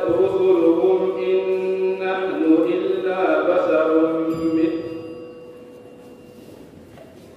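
A young man's voice reciting the Quran in melodic tajweed style into a microphone: one long phrase of held, slowly bending notes that ends about five seconds in.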